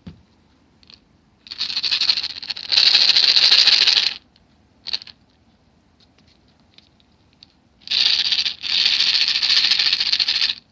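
White cat snoring in its sleep: two long, raspy snoring breaths, each in two parts, about six seconds apart.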